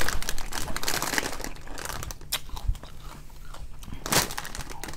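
A person chewing crunchy, rigid potato chips: a dense run of crisp crunches, loudest at the start and again about four seconds in.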